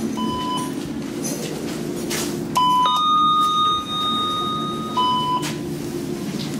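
Electronic signal tones of a KONE elevator: a short high beep repeating about every two and a half seconds, and about two and a half seconds in a louder, longer tone of two notes held for about a second, over a steady low hum.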